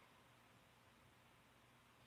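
Near silence with only a faint hiss: the quiet pause between a sleeper's snores.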